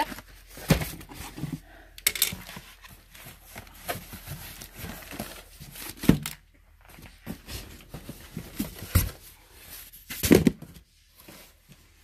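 Cardboard boxes and packaging being handled and rummaged through: rustling and scraping cardboard, with scattered knocks and thumps, the loudest about six seconds in and near the end.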